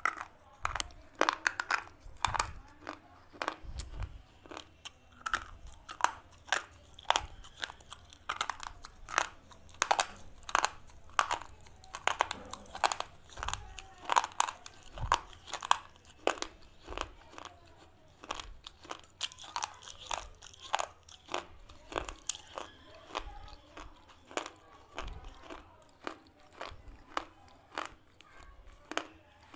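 A slate pencil being bitten and chewed close to the microphone: a steady run of sharp, dry crunches, about one or two a second.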